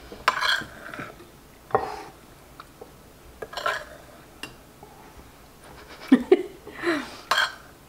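A metal spoon scraping and clinking against a ceramic bowl as sauce is scooped out, in several short separate strokes with pauses between.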